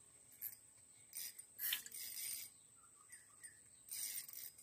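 Spinning fishing reel being cranked in several short bursts, its gears whirring faintly as line is wound in.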